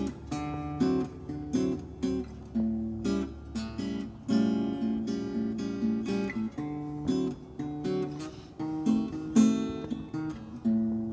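Background music on acoustic guitar: plucked and strummed chords, one after another.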